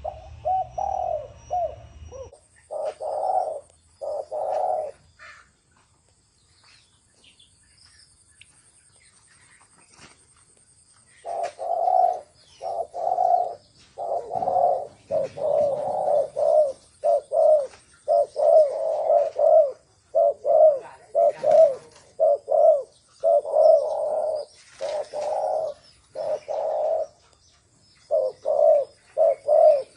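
Spotted dove cooing in repeated short phrases: a few coos, a pause of about six seconds, then a long run of coos following one another closely.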